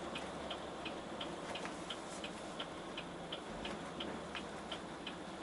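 Turn-signal indicator in a truck cab ticking steadily, a little under three clicks a second, over the low hum of the engine and road noise.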